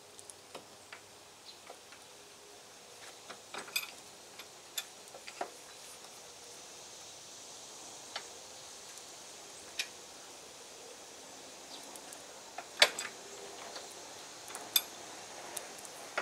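Scattered light metallic clicks and clinks as a U-joint, its bearing caps and a driveshaft yoke are handled and set in a bench vise. Two sharper knocks come near the end.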